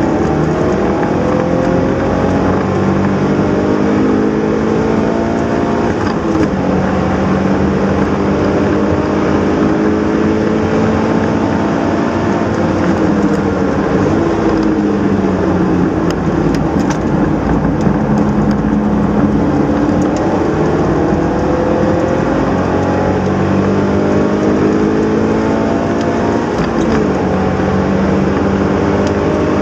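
Subaru BRZ's 2.0-litre flat-four engine pulling hard through the revs, its note climbing steadily and then dropping sharply at each gear change or lift, several times over.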